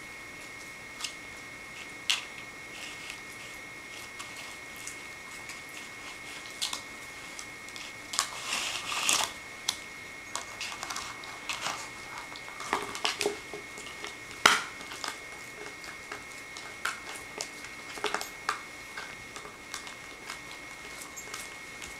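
Two puppies playing on carpet: scattered clicks, scuffles and rustles, with a plastic dog bowl being knocked about and mouthed. The loudest sound is one sharp knock about two-thirds of the way through.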